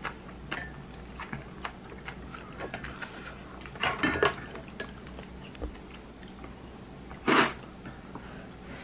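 Someone eating from a stainless steel bowl: chewing, with scattered light clicks of a spoon and chopsticks against the bowl and a short louder noise of utensil on bowl about seven seconds in.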